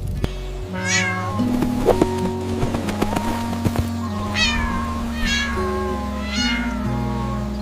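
A cat meowing four times, each meow falling in pitch, over background music with held notes.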